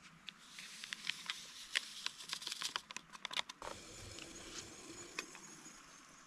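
Paper coffee sachet crinkling and being tapped as instant coffee powder is shaken out into a collapsible silicone cup: a run of small crackly clicks, then quieter handling noise after about three and a half seconds.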